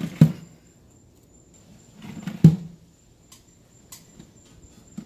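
Metal wire smoker racks knocking and scraping as they are slid into the rails of a Char-Broil electric smoker's steel cabinet: two sharp knocks about two seconds apart, then a few lighter clicks.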